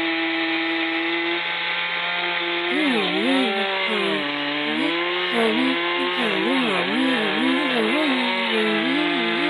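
Chainsaw running at high revs. From about three seconds in, its pitch dips and recovers again and again as the chain bogs down and picks up in the cut.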